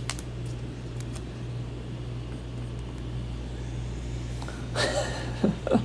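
Steady low electrical hum, with a few faint clicks and a brief rustle and knocks near the end as trading cards are handled.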